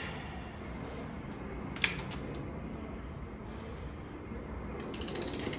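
Hand tools clinking against a cylinder head on an engine stand: one sharp metallic click about two seconds in, then a quick run of light clicks near the end, over steady shop background noise.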